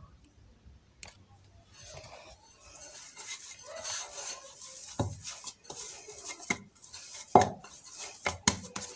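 Hands kneading and gathering shortcrust tart dough in a plastic mixing bowl: soft rubbing and scraping, broken by several sharp knocks on the bowl, the loudest about seven seconds in.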